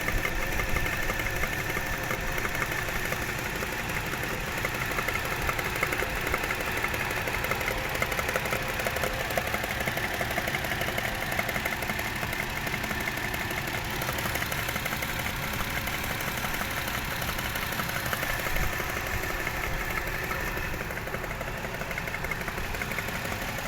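Toyota 1JZ-GE inline-six engine idling steadily with a fast, even tapping knock. Others suggest the knock may come from loose camshaft fastenings.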